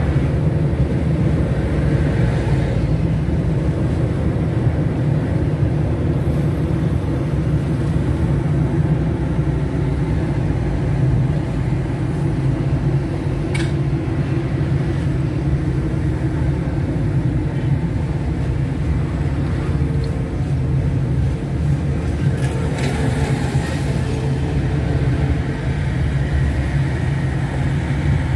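Steady low drone of a car driving in city traffic: engine and tyre road noise, with no sudden changes.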